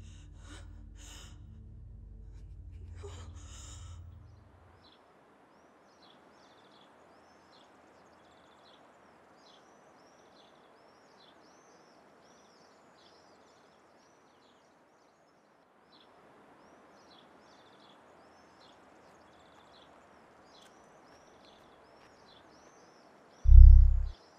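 A low steady drone with a couple of sharp gasps, which stops about four and a half seconds in. Then birds chirp repeatedly over a faint steady hiss, and a short, very loud low thump comes just before the end.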